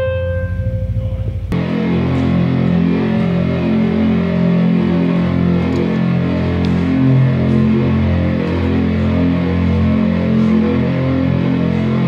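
Rock band playing live through the stage PA at a sound check. A held synthesizer tone over a pulsing bass cuts off abruptly about a second and a half in, and the full band comes in with guitar, bass and keyboards, heavy in the low notes.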